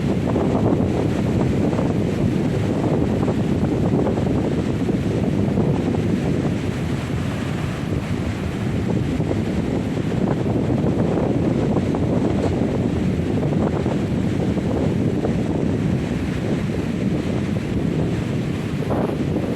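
Strong southwest-monsoon (habagat) wind buffeting the microphone over surf breaking on the beach: a steady, loud noise heavy in the low end with no let-up.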